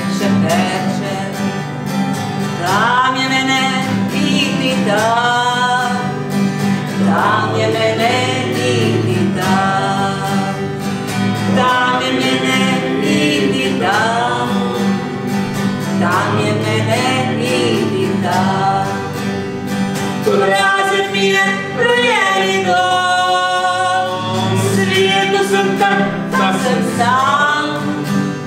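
A woman singing a song in long, held notes, several sliding up into pitch, accompanied by an acoustic guitar.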